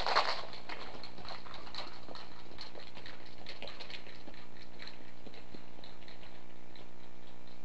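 Irregular crackling clicks and ticks over a steady electrical hum and hiss, with a denser burst in the first half-second that thins out afterwards.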